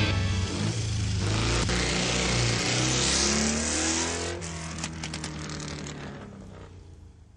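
A motor revving, its pitch rising and then winding down as it fades out to silence near the end.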